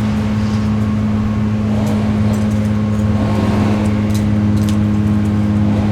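Heavy equipment engine running steadily at a constant speed, a loud low hum that does not change pitch.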